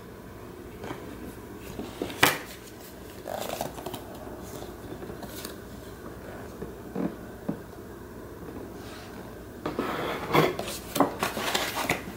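A toddler's hands handling and bending stiff cardboard building-idea cards: scattered soft rustles and clicks, a sharp click about two seconds in, and a busier run of rustling and clicking near the end.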